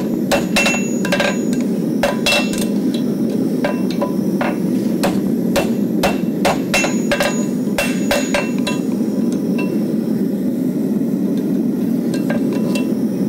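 A farrier's hammer striking a red-hot steel Diamond Tracker horseshoe on the horn and face of a steel anvil. The blows come in irregular runs with short pauses and ring a little. This is the forging of the shoe into a front shape: opening the toe, then bringing in the wide heels. A steady low rushing noise runs underneath.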